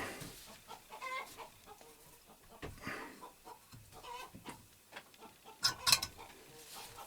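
Chickens clucking, a string of short calls, with a few sharp clicks about six seconds in.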